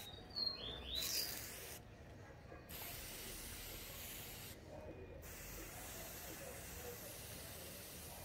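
A hand spray bottle misting a caged papa-capim (seedeater) with water and apple cider vinegar: a short hiss of spray about a second in, with a couple of quick high chirps from the bird around it. After that, a faint steady hiss.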